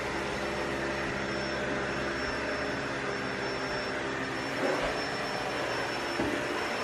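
Vacuum cleaner running steadily, a constant motor drone with a whine.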